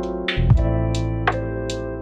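Background music: sustained keyboard chords over a bass line, with a light steady beat of sharp percussive hits.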